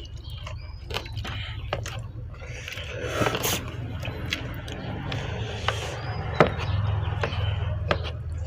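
Eating from a bowl of noodle soup: scattered clicks and knocks of utensils against the bowl, with a brief rustling scrape about three seconds in, over a steady low hum.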